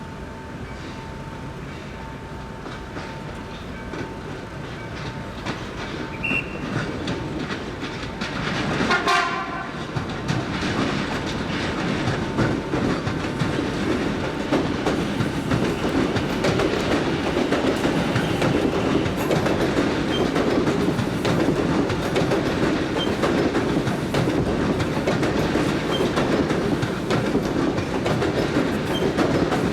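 CSR electric multiple unit of the Sarmiento Line passing over a level crossing. A steady tone sounds for the first several seconds, a short horn sound falling in pitch comes about nine seconds in as the train arrives, and then the wheels clickety-clack and the cars rumble steadily past, louder than at the start.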